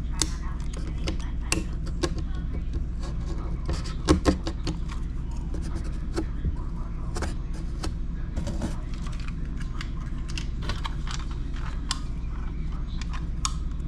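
Irregular clicks, taps and light rattling from tools and small parts being handled, with two louder knocks about four seconds in, over a steady low hum.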